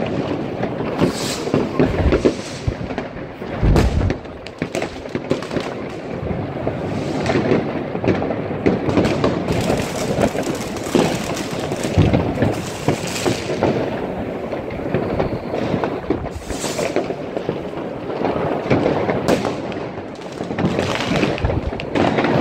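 New Year's Eve fireworks and firecrackers going off in a continuous barrage of cracks and bangs, with several heavier booms among them.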